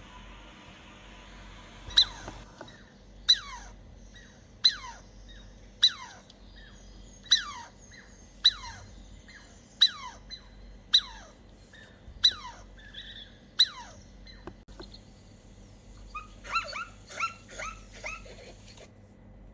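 A canine yelping: about ten sharp, high yelps, each falling in pitch, at a steady pace of roughly one every second and a quarter, then a quick run of shorter yelps near the end.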